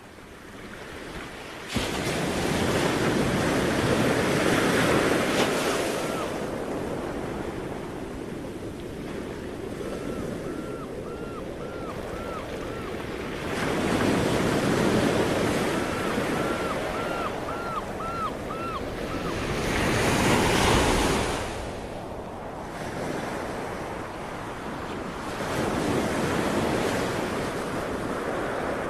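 Sea waves breaking and washing on the shore, the surf swelling and falling back every several seconds. Twice, a quick run of about six short chirping calls sounds over the surf.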